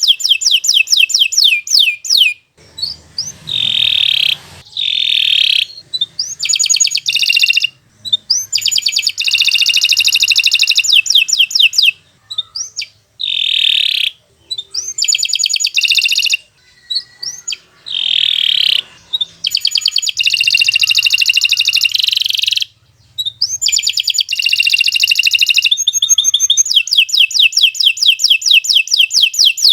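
Domestic canary singing long, fast song phrases: rapid trills of repeated notes, some rising, strung into runs of several seconds with brief pauses between them.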